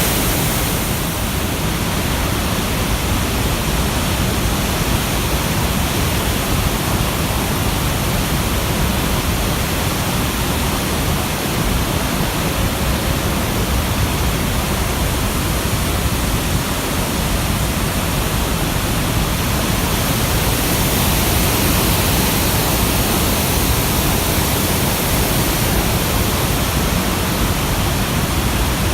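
A river in flood, swollen by typhoon rain, rushing past as a loud, steady wash of water noise.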